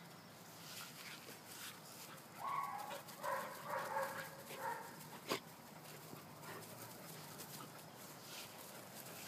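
German Shepherd puppies at play, giving a short flurry of high-pitched yips about two and a half seconds in that lasts about two seconds. A single sharp click a little after five seconds.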